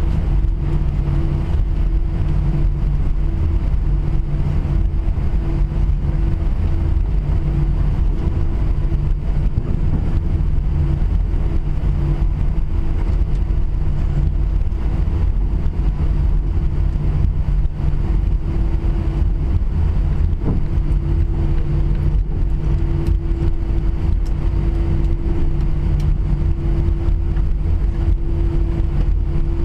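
Cabin noise inside an Airbus A320-200 at a window seat: a steady low rumble of the engines and airframe, with a constant hum and a lower drone that pulses on and off every second or two.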